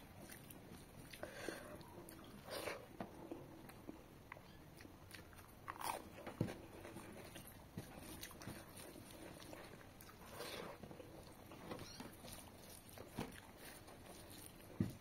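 Faint chewing and lip-smacking of a person eating mutton curry and rice by hand, in short scattered bursts, with a sharp click near the end.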